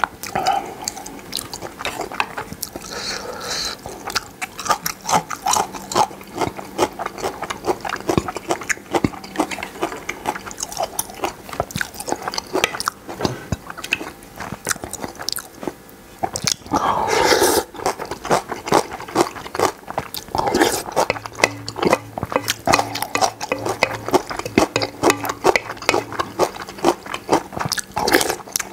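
Close-miked eating of spicy noodle soup: wet chewing, lip smacks and slurps, with a spoon and chopsticks clicking against the bowl.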